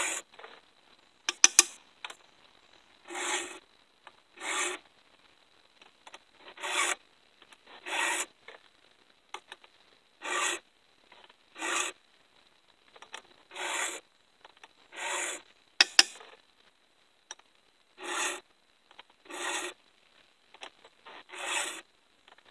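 Round chainsaw file rasping across the cutters of a 3/8-inch full-compression ripping chain held in a file guide, two strokes per cutter: the strokes come in pairs about a second apart, a new pair every three seconds or so. Between pairs there are light clicks as the chain is advanced to the next cutter, and twice a sharp metallic click, the loudest sound.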